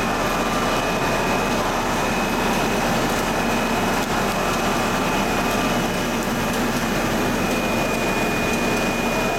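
Steady mechanical noise of a running PS plastic sheet extrusion line and its centrifugal air blowers, with a constant high whine over a low hum.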